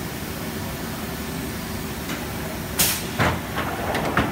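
Steady hum of workshop machinery, with a short sharp hiss about three seconds in, then a low thump and a few clicks and knocks.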